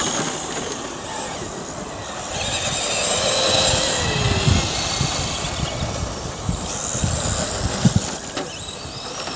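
Radio-controlled model buggies racing, their motors whining and changing pitch as they speed up and slow down, with a couple of sharp knocks near the end.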